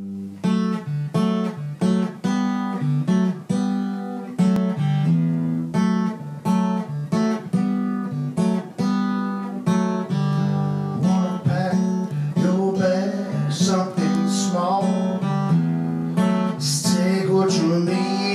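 Acoustic guitar strummed in a steady rhythm, a few strums a second. Wavering sung notes join the guitar over the last several seconds.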